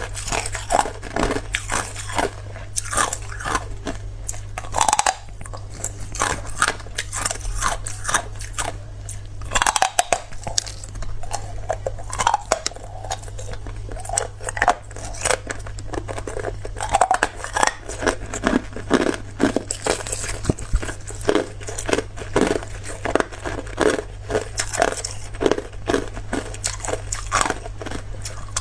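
Clear hard ice (Zhaofeng hard ice) being bitten and chewed close to the microphone: a continuous run of sharp cracks and crunches.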